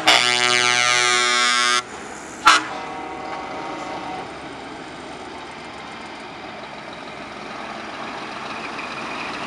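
Truck air horn blown in one long blast of nearly two seconds, then a short toot about half a second later. After that a Scania truck's diesel engine runs as the truck approaches, growing louder near the end.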